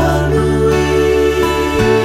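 Background music: held notes over a bass line that changes note about once a second.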